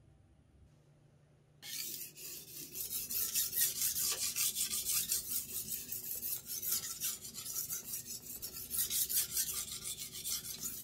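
Steel Henckels kitchen knife blade being hand-sharpened on a wet whetstone: rapid back-and-forth scraping strokes that start suddenly about two seconds in and keep going.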